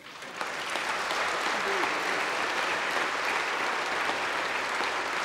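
A large seated audience applauding: a full round of clapping from many hands that builds up within about half a second and then carries on steadily.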